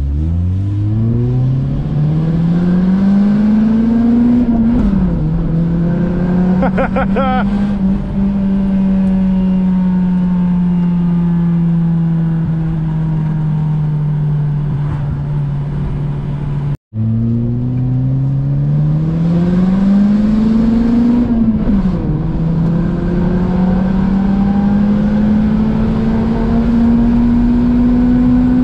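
Honda VTEC engine pulling hard under acceleration: its note climbs steeply for about four seconds, drops back at a gear change and settles into a steady cruise. After a brief break it climbs and shifts again. The engine is running normally, with no odd idle, after its throttle position sensor was set.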